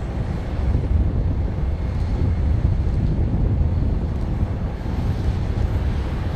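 Airbus A321 jet engines at takeoff power during the takeoff roll, a steady deep roar, mixed with wind rumbling on the microphone.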